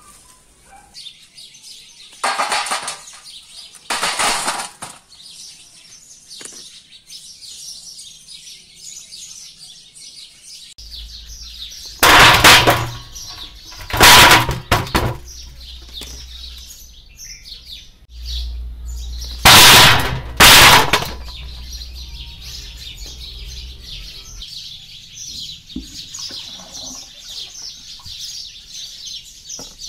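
Birds chirping throughout. Two short rustling bursts a few seconds in come from guava branches being handled. From about twelve seconds in there are four loud clattering bursts as green guavas tumble from a plastic basket into a steel bowl.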